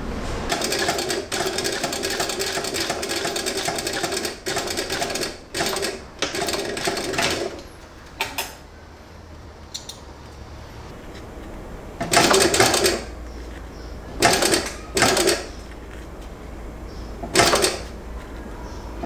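Industrial cylinder-bed sewing machine stitching a zipper onto clear PVC. A long run of stitching with short pauses comes first, and near the end there are several short bursts of under a second each.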